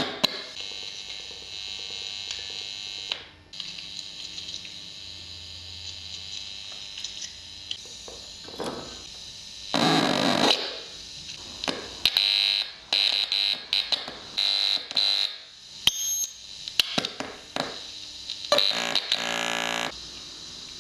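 Circuit-bent toy walkie-talkie sounding through its speaker: a steady high electronic whine broken by bursts of harsh, alarm-like buzzing, one about halfway, several short ones after it and a longer one near the end.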